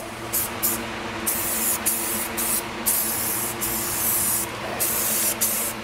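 Rust-Oleum flat black aerosol spray paint can spraying in a run of short hissing blasts with brief pauses between them, over a steady low hum.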